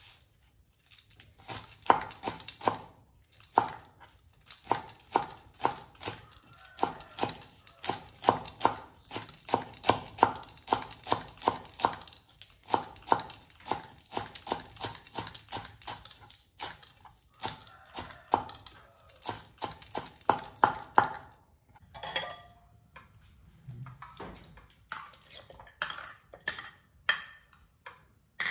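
Steel cleaver chopping sliced green leaves on a wooden cutting board, in quick steady strokes about three a second. The chopping stops about three-quarters of the way through, followed by a few scattered knocks.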